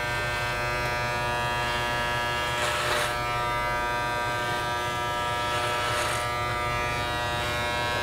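Electric hair clippers buzzing steadily as they cut freehand through a mannequin's long beard, with brief rasps twice as the blades bite into the hair.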